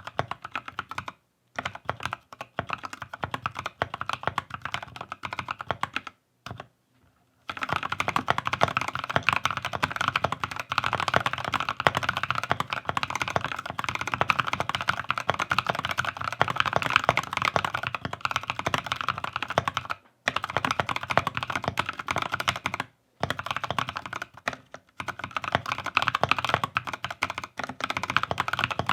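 Typing on a Keychron K6 65% mechanical keyboard with NovelKey Cream linear switches. Keystrokes come steadily with a couple of short pauses in the first quarter, then turn faster and denser for the rest.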